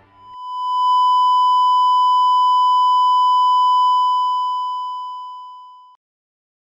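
A single long, steady electronic beep laid over the footage as a sound effect. It swells in over the first second, holds, then fades and cuts off sharply about six seconds in.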